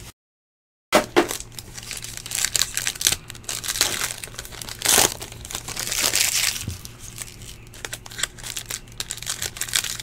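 Foil wrapper of a trading-card pack crinkling and rustling in the hands while packs and cards are handled: an irregular run of crackles and rustles, starting after about a second of total silence.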